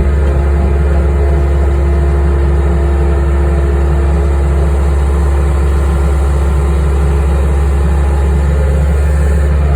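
Skid steer engine running steadily, a loud, deep, unchanging drone.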